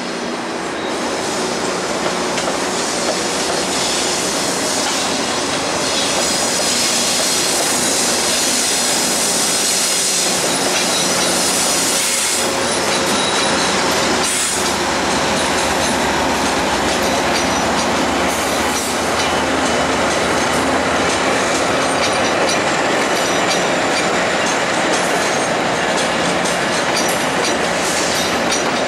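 VIA Rail passenger train rolling slowly past: a GE P42 Genesis diesel locomotive followed by LRC coaches, with high-pitched wheel squeal and wheels clicking over rail joints. The locomotive's diesel engine goes by about halfway through.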